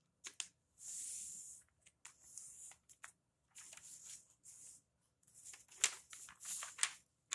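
A sheet of white paper being folded into a paper airplane by hand: intermittent rustling and sliding swishes as the paper moves, and a cluster of short, sharp crisp sounds near the end as the folds are creased down.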